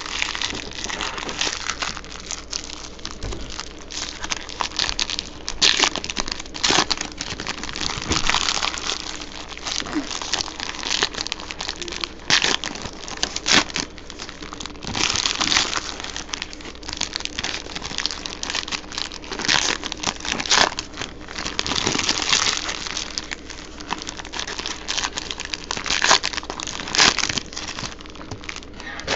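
Plastic-foil trading-card pack wrappers crinkling as packs are torn open by hand, in irregular crackling bursts.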